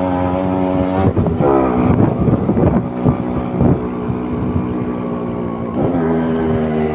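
Yamaha RX100 two-stroke single-cylinder motorcycle engine running under way. Its note is steady at first, drops in pitch a little over a second in, then rises and falls unevenly with the throttle for a few seconds before settling back to a steady note near the end.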